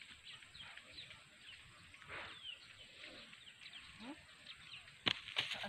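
Small birds chirping faintly, a steady scatter of short falling chirps. A few sharp clicks or crackles come near the end.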